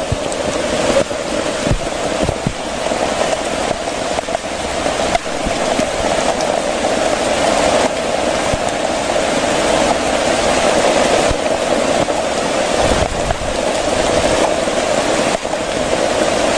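Heavy rain falling steadily, with a few faint knocks.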